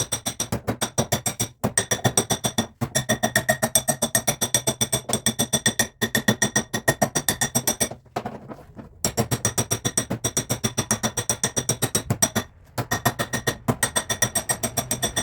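Rapid hammer taps on a sheet-metal car body panel, about six or seven a second, with a ringing metallic tone. The run stops briefly several times, longest about eight seconds in.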